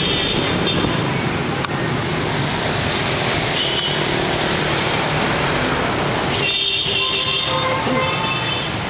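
Steady city road traffic with vehicle horns honking: a short honk near the start, another about four seconds in, and several horns sounding together from about six and a half seconds.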